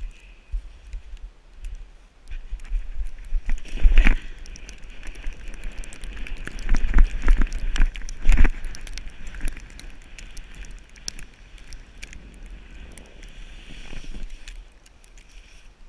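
Plastic sled sliding down a snowy hill: a steady scraping hiss with crackling, and two heavy bumps about four and eight seconds in. Wind rumbles on the microphone.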